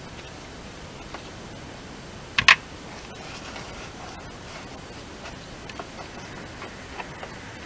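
A sharp double click of hard plastic about two and a half seconds in, with faint scattered ticks, as a gloved hand works the VW Golf IV's side indicator lamp in its opening in the front wing. A steady hiss lies underneath.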